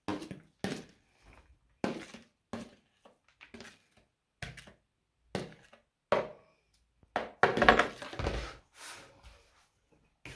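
A spoon knocking and scraping against a plastic container as chopped onion is scraped out into a bowl of minced meat. A series of short knocks and scrapes, with a longer, louder stretch of scraping about two-thirds of the way through.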